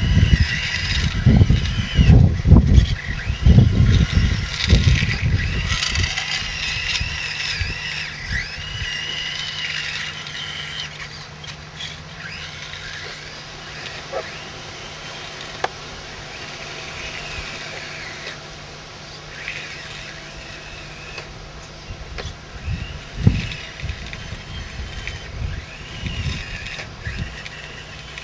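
Small electric drive motors and gearboxes of a radio-controlled 1/16 scale skid steer loader whining, the pitch rising and falling as it drives and stops. Heavy low rumbling thumps run through the first few seconds and return briefly near the end.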